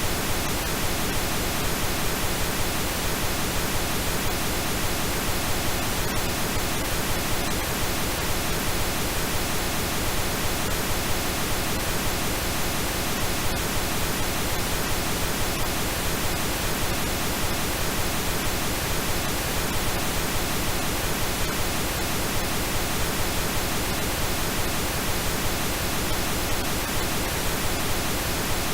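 Synthetic pink noise: a steady, unchanging hiss spread evenly across all pitches.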